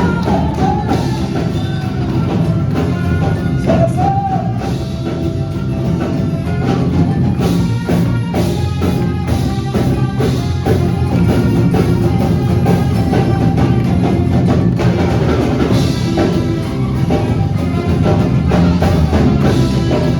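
Music with a strong percussion part: drums and sharp, clicking strikes over sustained instruments.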